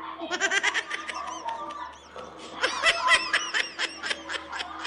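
High-pitched giggling laughter in two quick runs of short "ha" bursts, a brief one just after the start and a longer one from about the middle on, over a faint steady hum.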